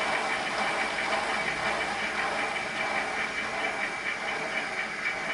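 Sound decoder in a model GWR 57xx pannier tank playing recorded steam locomotive sounds through its small speaker: a steady hiss of steam, as of the engine standing at idle.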